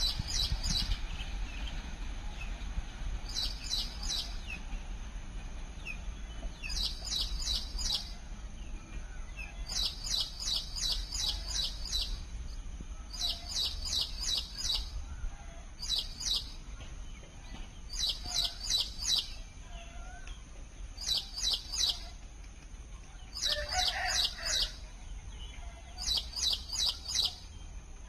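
A bird calling: about ten short bursts of rapid, high chirping notes, each about a second long, repeated every couple of seconds over a low steady rumble.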